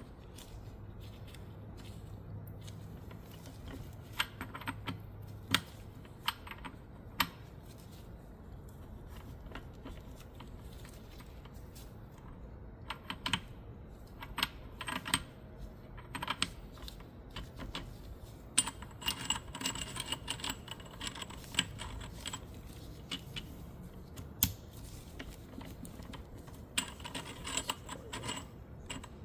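Steel gears, synchro rings and shift sleeves of a Honda Prelude five-speed manual transmission clicking and clinking as they are fitted and worked by hand. The clicks come in scattered clusters, some with a brief metallic ring.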